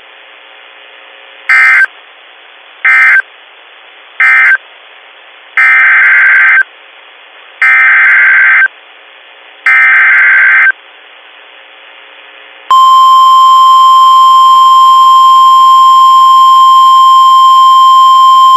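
NOAA Weather Radio Emergency Alert System signalling. Three short data bursts end one warning, then three longer SAME header bursts announce the next. About two-thirds of the way through, the steady, loud 1050 Hz warning alarm tone starts and holds.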